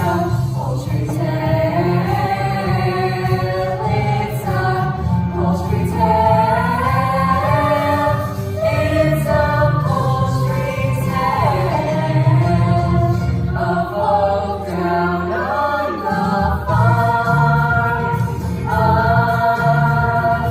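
Music with a choir singing held notes that shift in pitch every second or two, over a steady low bass part.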